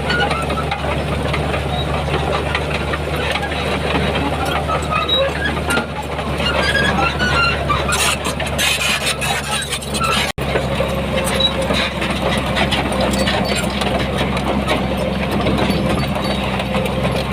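Heavy diesel earthmoving machinery running steadily, with scattered higher squeaks and clatter over the engine. The sound cuts out for an instant about ten seconds in.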